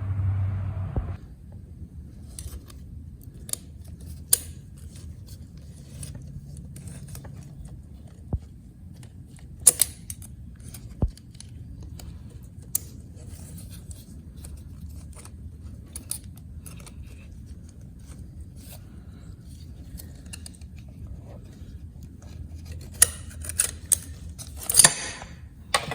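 Scattered clicks and clinks of metal automatic-transmission parts being handled and taken apart during a teardown. A louder run of scraping and rattling comes near the end.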